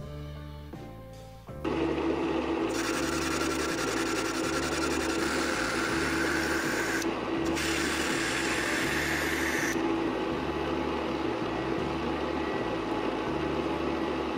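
A small power tool starts up about a second and a half in and runs with a steady hum. About a second later it starts cutting into material, with a short break midway; the cutting stops about two-thirds of the way through while the motor keeps running. Background music with a steady beat plays underneath.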